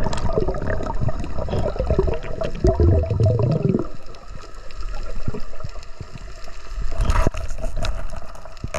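Water sloshing and bubbling around an underwater camera, with a louder low rush about three seconds in and a couple of sharp clicks near the end.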